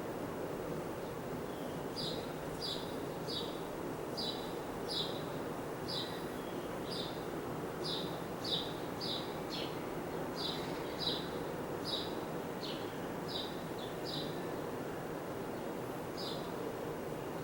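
A FASCO Charleston five-blade ceiling fan running steadily, a low motor hum under the air noise. Over it a bird chirps again and again, short high chirps about three a second in runs with short gaps.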